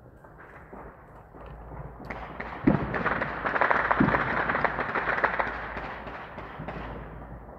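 Fireworks: a dense run of crackling pops that starts about two seconds in and builds, with two deeper booms a little over a second apart, then fades away.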